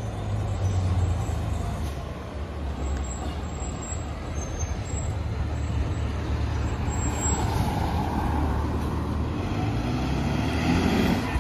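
Fire engine's diesel engine running as the pumper drives past, a steady low engine note.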